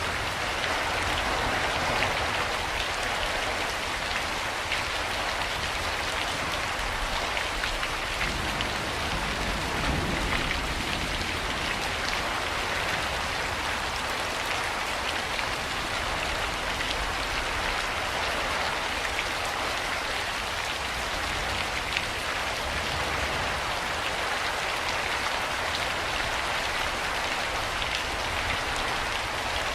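Steady rain falling and pattering on surfaces, with a dense patter of individual drops over a low rumble.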